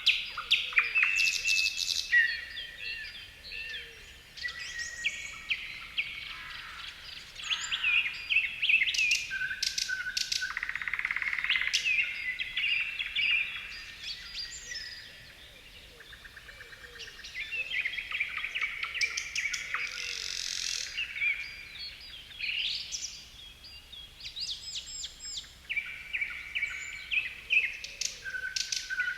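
Several songbirds singing and calling at once: overlapping chirps, rapid trills and whistled notes, with a brief lull about halfway through.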